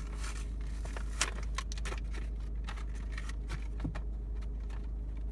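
Plastic toy packaging being handled and pulled open: scattered crinkles and clicks, with one sharper snap about a second in, over a steady low rumble inside a car.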